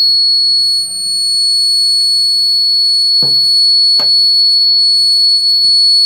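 Piezo buzzer of a rain-alarm circuit sounding a steady, high-pitched continuous tone, set off by water in the cup bridging the two wire probes. Two short knocks about three and four seconds in.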